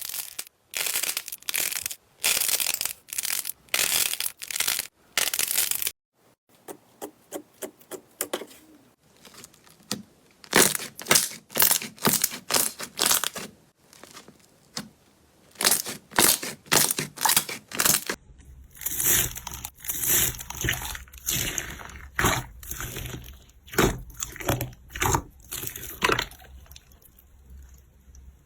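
Slime being squeezed, pressed and poked by hand, crackling and crunching in short repeated bursts. The sound changes twice as different slimes are handled.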